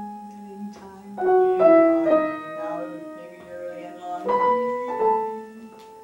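Two grand pianos played together: chords struck a few at a time and left to ring and fade between them.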